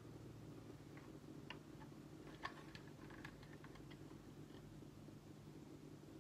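Faint scattered clicks and taps of hands handling a 3D-printed plastic airsoft carbine kit, bunched around the middle with the sharpest near halfway. A low steady hum runs underneath.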